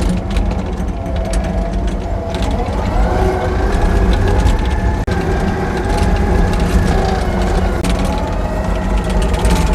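An engine running steadily, with frequent metal clanks and rattles over it.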